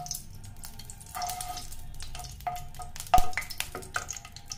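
A wooden spatula scraping and tapping around a hot non-stick kadhai as a spoonful of ghee melts and sizzles in it, with one sharp knock of the spatula against the pan a little after three seconds in.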